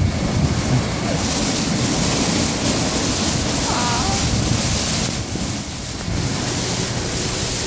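Soft-touch automatic car wash running: rotating foam brushes and water spray hissing over the low rumble of the wash machinery. The hiss is strongest from about one to five seconds in.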